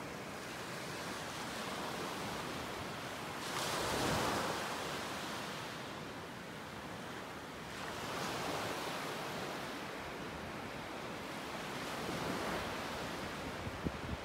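Small waves breaking and washing up a sandy beach in slow surges every few seconds, the biggest about four seconds in.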